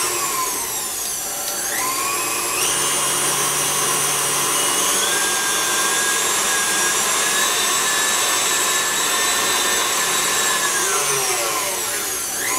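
KitchenAid Classic stand mixer whipping frosting with its wire whip, a steady motor whine. The whine drops as the speed is turned down near the start and climbs back about two seconds in, then drops and rises again near the end, as pieces of butter are added to the bowl.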